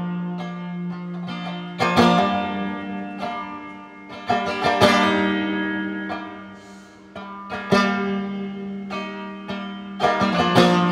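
Background music: an instrumental passage of plucked strings, chords struck every second or two and left to ring over a held low note.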